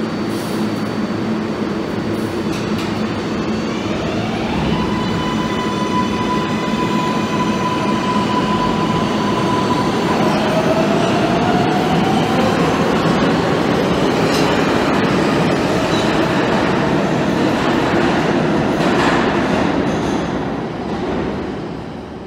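Kawasaki R142A subway train pulling out of the station and accelerating. Its electric propulsion gives a whine that steps up and rises in pitch over the rumble of the wheels on the rails. The sound fades away near the end as the last car leaves.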